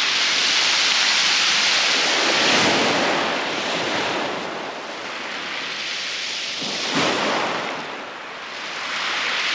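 Surf breaking and washing up a shingle beach, swelling and fading in slow surges, with a sharper break about seven seconds in.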